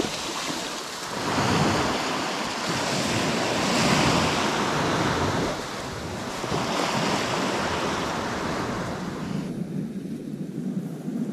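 Small waves breaking and washing up a sand-and-shingle shore, the wash swelling and ebbing every couple of seconds, with wind on the microphone. About three quarters of the way in, the hiss of the wash drops away and leaves a low wind rumble.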